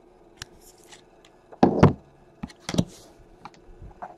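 Handling sounds of hard plastic card holders: scattered clicks and knocks. The loudest is a heavy thump a little over one and a half seconds in, followed by two more knocks about a second later.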